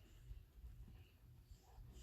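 Near silence: room tone with a faint low rumble and a few faint soft ticks.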